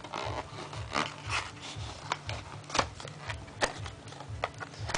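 Cardboard box and plastic packaging being handled and pulled open: a run of rubs, scrapes and sharp clicks, several a second.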